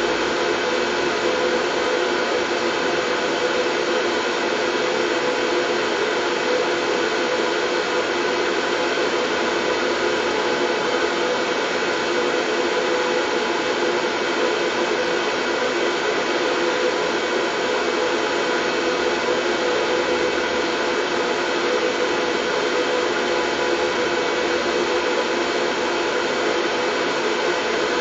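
Steady, unchanging white noise with a faint steady hum running through it, like a small appliance motor.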